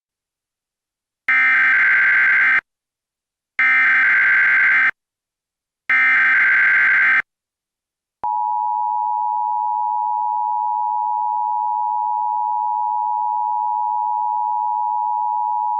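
Emergency Alert System SAME header: three bursts of data tones, each a little over a second long with a short gap between them. About eight seconds in, the steady two-tone EAS attention signal begins and holds unchanged.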